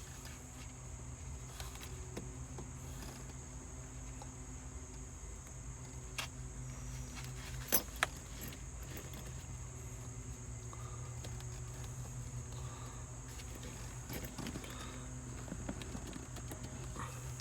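Faint small metallic clicks and light key jangling as a thin hex key is worked into the release hole of a Mercedes W123 ignition lock cylinder, with sharper clicks about six and eight seconds in, over a steady low hum.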